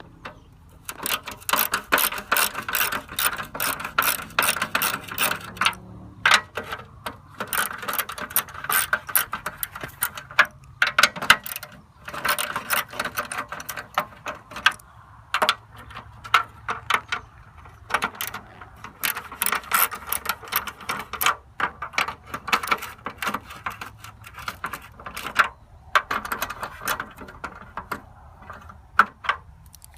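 A socket ratchet clicking rapidly in runs of a few seconds with short pauses between them, as it backs out the 1/4-inch-head screws holding the top cowl of a lawnmower engine.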